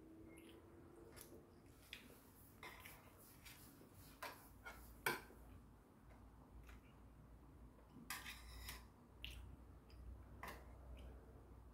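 Faint, scattered clicks and taps of stainless steel chopsticks and a spoon against a metal divided food tray.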